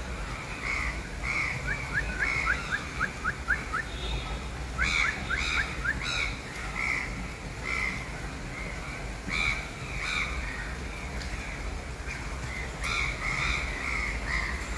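Crows cawing repeatedly, one short call every second or so, with two quick runs of short rising chirps at about two and five seconds in.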